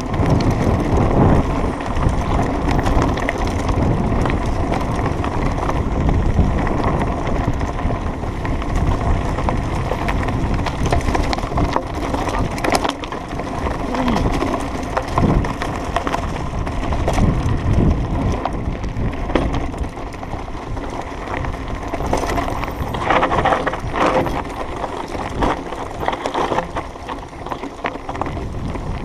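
Mountain bike riding fast down a rough dirt and gravel trail: a steady rush of tyre and trail noise, with many small knocks and rattles as the bike jolts over bumps.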